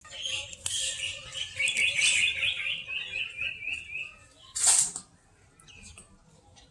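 A bird singing a quick series of repeated chirps that step slightly down in pitch over about four seconds. This is followed by one short, loud noisy burst.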